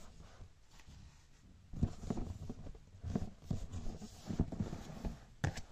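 Soft, irregular handling knocks and rustles, starting about two seconds in, with a sharper click near the end.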